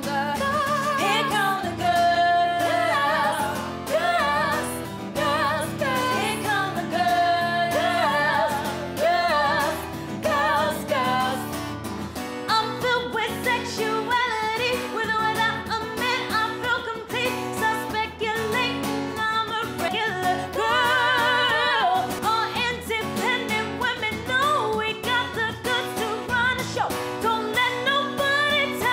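Women's pop vocal group singing over a strummed acoustic guitar, the voices sustained with vibrato.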